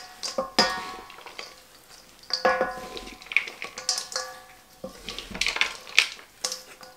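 Wooden salad servers tossing kale salad in a large stainless steel mixing bowl: irregular knocks of wood against the metal, each leaving the bowl ringing briefly, with the rustle of the dressed leaves between.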